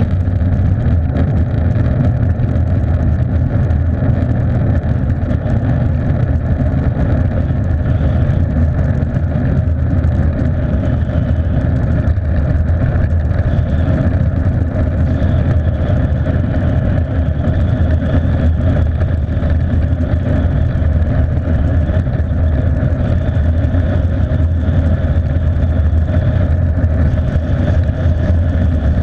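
Steady engine drone and wind rush from a vehicle cruising at constant speed, heard from a camera mounted on it. The pitch and loudness hold even throughout.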